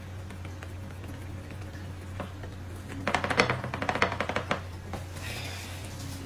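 Thin pancake wrappers being pressed and folded by hand on a plate: crinkly rustling and rapid small clicks, busiest from about three seconds in, over a low steady hum.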